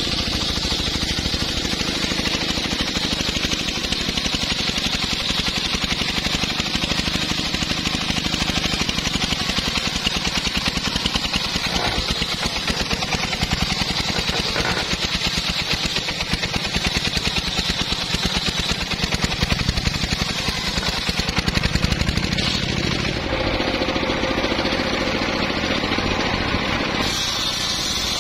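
Homemade circular saw bench running and ripping lengthwise through a log: a steady, loud machine sound with a rapid pulsing underneath, shifting in tone a little past three quarters of the way through.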